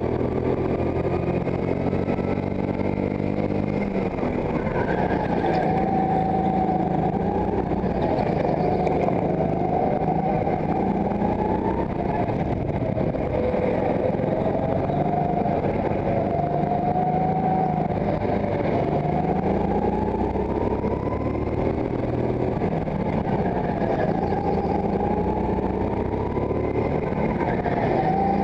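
Go-kart heard onboard while lapping, its motor rising and falling in pitch every few seconds as it speeds up on the straights and slows into corners, over a steady rough mechanical noise.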